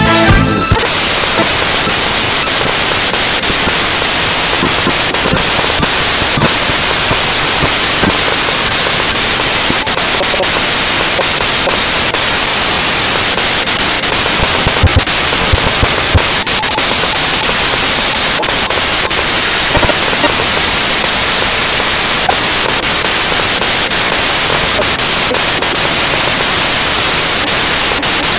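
Dance music cuts off under a second in, and a loud steady hiss of static, like white noise, takes over and runs on without change.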